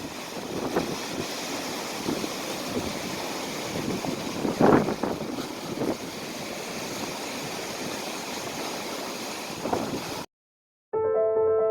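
Steady outdoor rushing noise with wind buffeting the microphone and a few brief knocks, the strongest about five seconds in. It cuts off abruptly shortly before the end, and after a moment of silence piano music begins.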